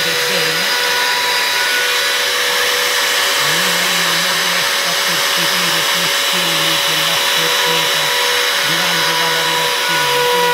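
Trim router spindle of a CNC 4040 Pro running steadily with a high whine while engraving wood, under a lower hum from the stepper motors that shifts pitch and breaks off in short stretches as the axes change moves.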